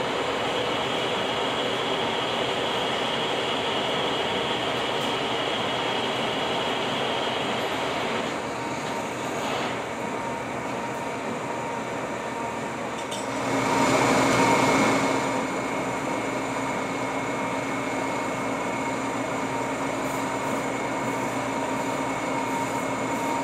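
Lucas model 41 horizontal boring mill running, a steady mechanical hum with gear whine. The sound changes about 13 seconds in and swells louder for a moment soon after.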